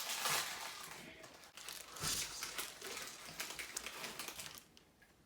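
Packaging crinkling and rustling as it is handled, in irregular crackly bursts, stopping about four and a half seconds in.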